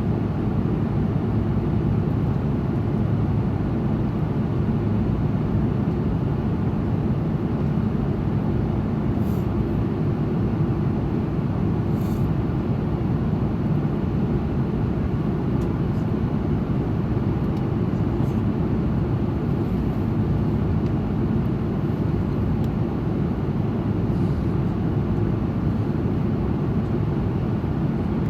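Steady cabin noise inside an Airbus A330-200 airliner: an even, unchanging low rumble of the engines and airflow, with a few faint ticks.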